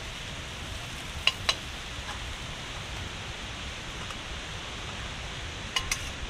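Hot mustard oil sizzling steadily in a wok of freshly fried soya chunks. A metal spatula clinks sharply against the pan twice about a second in, and a few times more near the end, as the chunks are scooped out.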